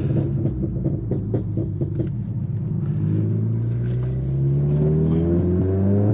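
Remapped VW Golf R Mk7's turbocharged 2.0 TSI four-cylinder, heard from inside the cabin, popping and crackling through the exhaust on the overrun (tuned-in pops and bangs) for the first few seconds. The engine note then rises steadily as the car accelerates.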